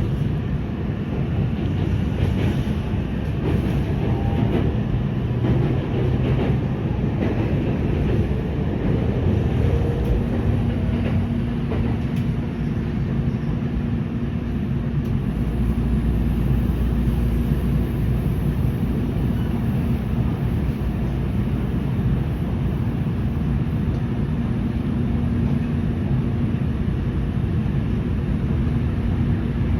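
Kintetsu 8A series electric train running, heard from inside the car: a steady rumble of wheels and running gear, with a steady hum coming in about ten seconds in.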